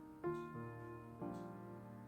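Soft background music of held chords that change about a quarter second in and again a little past one second.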